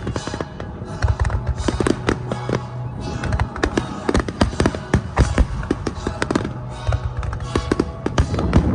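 Fireworks display: aerial shells bursting in quick succession, a dense run of sharp bangs and crackles, with music playing underneath.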